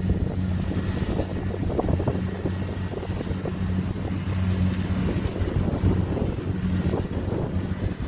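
Kubota DC-70 Plus combine harvester's diesel engine and threshing machinery running steadily as it cuts rice: a constant, even drone with a rough, noisy texture.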